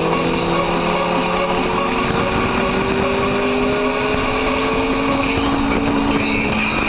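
Lotus Elise's four-cylinder engine heard from inside the open cabin, pulling steadily with its pitch rising slowly as the car accelerates along the track.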